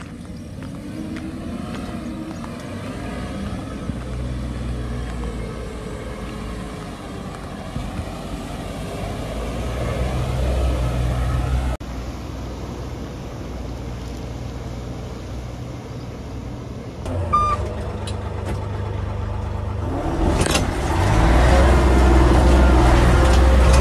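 Sherp N 1200 amphibious ATV's engine running as the vehicle drives over dirt and through a river, with water churning around it. About 20 seconds in a louder, steady engine drone from inside the cabin takes over.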